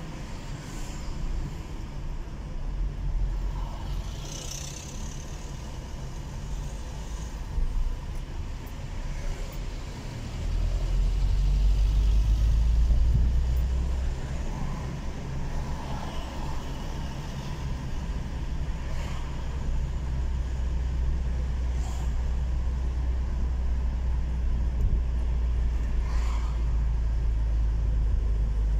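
Low rumble of a car driving in city traffic, heard from inside the car; it grows louder about ten seconds in.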